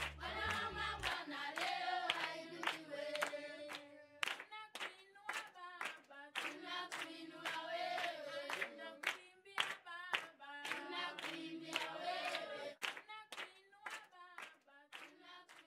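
Music: singing voices over a steady clapping beat of about two claps a second.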